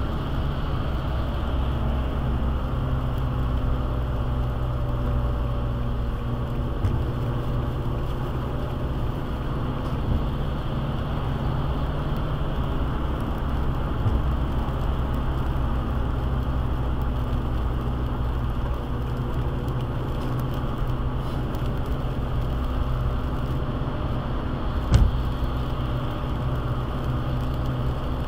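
Steady road noise and engine hum heard from inside a car cruising on a wet highway, with one sharp knock near the end.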